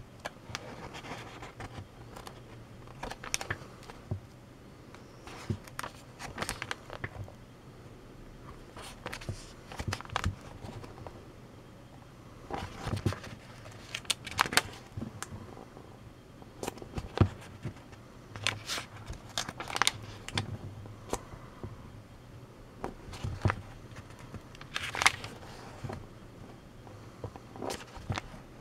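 Pages of a paperback book being turned and handled by fingers: irregular paper rustles, flicks and soft crackles, a few every second or two. A faint steady hum runs underneath.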